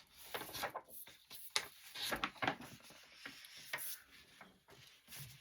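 Irregular light clicks, taps and rustling of items being handled by hand.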